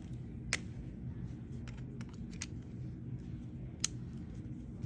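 Plastic clicks from a Chrysler/Dodge/Jeep smart key fob shell being pressed and snapped back together after a battery change. A sharp click comes about half a second in and another near the end, with lighter ticks between, over a steady low background hum.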